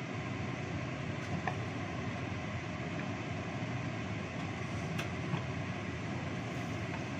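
Gas stove burner running steadily under a wok of simmering coconut-milk sauce, with a few light clicks. Near the end a wooden spatula stirs the sauce in the wok.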